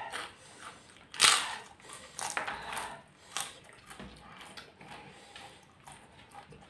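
Crunchy fried food being bitten and chewed close to the microphone: one loud crunch about a second in, then softer scattered crunches.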